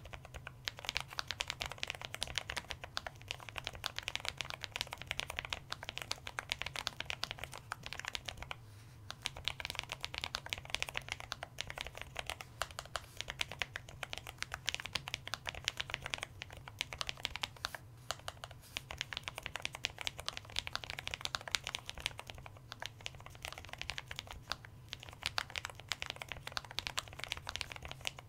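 Lofree Edge low-profile gasket-mounted mechanical keyboard with Kailh POM 2.0 linear switches and stock PBT keycaps being typed on steadily: a dense run of quiet, crisp keystroke clicks, with a short pause about nine seconds in.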